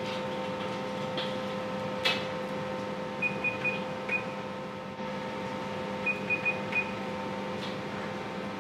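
Steady machine hum with a few fixed tones, broken by a sharp click about two seconds in and two runs of short, high electronic beeps, three or four quick beeps each, a few seconds apart.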